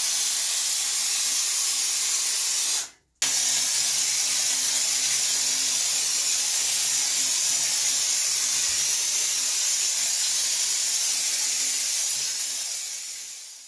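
Gloria FoamMaster FM10 hand-pump foam sprayer hissing steadily as it sprays soapy water. The spray stops briefly about three seconds in, starts again, and fades out near the end.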